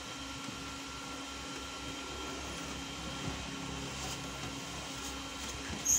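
A cloth wiping the plastic parts inside an opened colour laser printer, with faint rubbing and light clicks over a steady background hum; a brief high squeak near the end.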